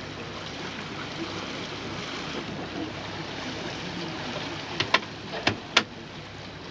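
A small fishing boat's motor runs steadily under water and wind noise. About five seconds in come four sharp knocks as the trolling outrigger pole is set in position.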